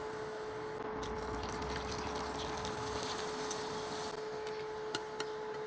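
Rice chips frying in hot oil in a stainless steel pan: a steady sizzle with a constant hum under it. A couple of light clicks come near the end.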